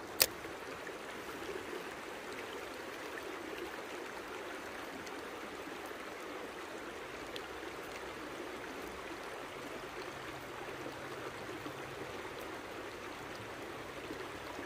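Steady rush of a stream's running water, with one sharp click just after the start.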